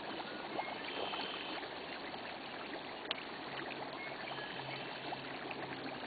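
Shallow creek water trickling steadily over stones, with scattered small ticks and pops from gas bubbles rising through the water at a natural gas seep.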